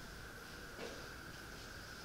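Quiet room tone: a faint steady high whine over a low hum, with one soft brief sound just under a second in.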